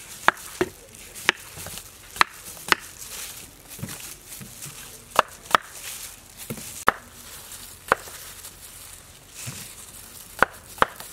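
Knife chopping peeled green papaya on a wooden chopping board: sharp knocks of the blade hitting the board, about a dozen, spaced irregularly with short pauses and sometimes in quick pairs.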